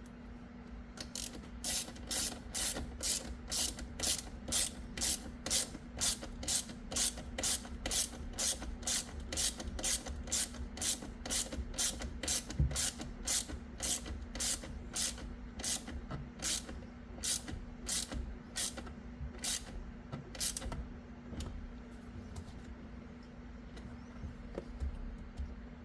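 Hand ratchet clicking in steady back-and-forth strokes, about two a second, as a bolt is run in; the strokes slow and stop about three quarters of the way through.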